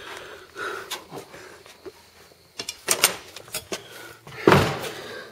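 A few scattered clicks and knocks, the loudest a thump about four and a half seconds in.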